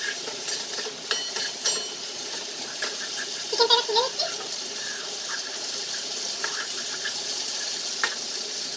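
Cornflour-coated chicken pieces frying in hot oil, a steady sizzle, with a few clicks of a utensil against the pan early on and a brief squeak about three and a half seconds in.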